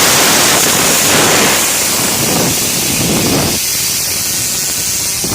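Compressed air blasting from an air compressor's nozzle onto a fidget spinner: a loud, steady hiss that eases slightly near the end.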